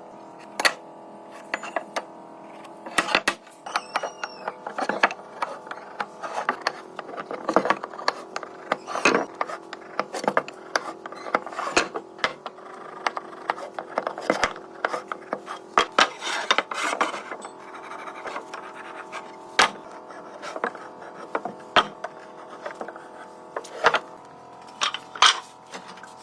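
Woodworking shop sounds: wood and hand tools being handled, giving irregular knocks, taps and clicks of varying loudness over a faint steady hum.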